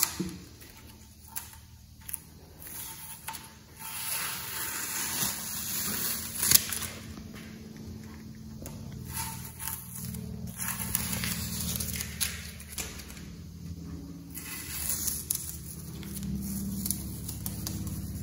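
Masking tape being peeled off a freshly painted motorcycle fuel tank to uncover the airbrushed pattern: a rough crackling with sharp ticks here and there, loudest about six and a half seconds in.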